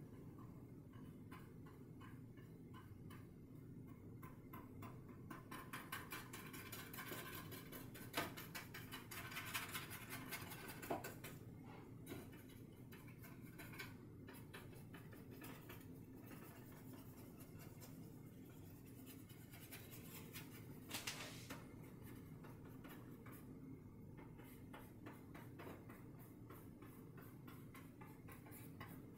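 Faint scratching of a bristle brush blending oil paint across a painting's background, with a few louder strokes about a third of the way in and again around two-thirds, over a low steady hum.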